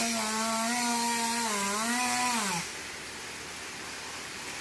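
Chainsaw running at high revs with a steady pitch that wavers once, then slides down and stops about two and a half seconds in; a steady hiss continues after.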